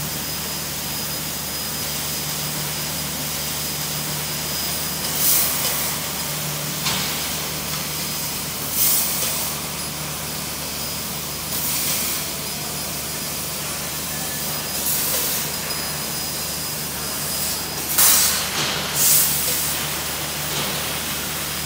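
Longdiao laser tube-cutting machine cutting a square steel tube: a steady hiss over a low hum, swelling into brief louder hisses several times.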